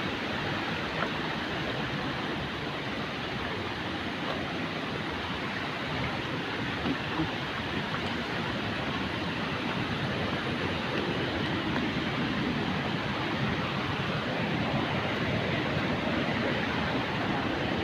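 A waterfall's falling water, a steady, even rush.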